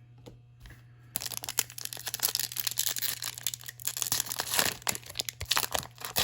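Foil trading-card pack wrapper being torn open and crinkled by hand. It starts about a second in, with dense crackling full of sharp crinkles.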